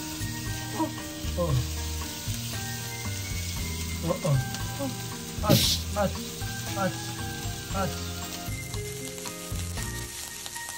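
Pork and mushrooms frying in a nonstick frying pan, a steady sizzle with a short louder hiss about halfway through, under background music.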